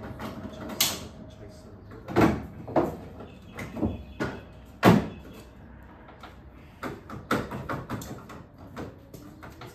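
Irregular metal clunks and knocks from a car's sheet-metal wheel arch being pushed and worked by hand: five sharp knocks in the first five seconds, the last one the loudest, then a run of lighter rattling clicks near the end.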